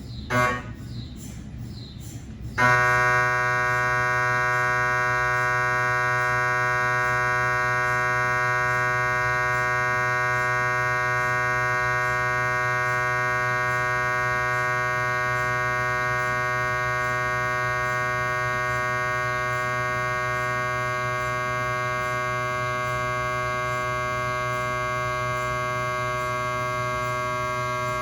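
GE 3T Twinspeed MRI scanner's gradient coils running a cardiac pulse sequence. A few short chirping ticks come first, then a loud, steady electronic buzz of many held tones starts suddenly about two and a half seconds in and carries on unchanged.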